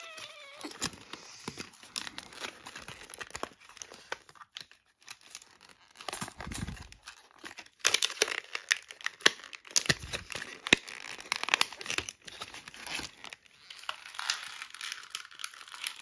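Clear plastic blister packaging crackling and crinkling as it is flexed and pulled apart by hand to free action figures, in irregular bursts of snapping plastic that grow busier in the second half.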